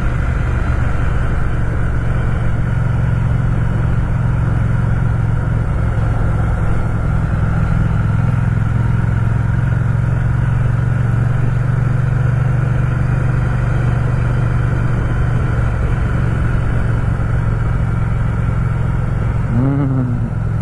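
Ducati Scrambler's air-cooled L-twin engine running steadily at an even cruising speed under the rider, with a steady rush of wind and road noise.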